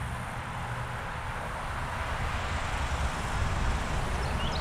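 Steady outdoor background noise: a low rumble under an even hiss, with a small bird starting a quick series of short chirps near the end.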